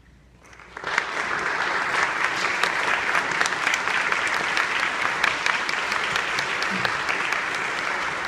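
Audience applause breaking out about a second in and holding steady: the clapping that greets the end of a choral piece.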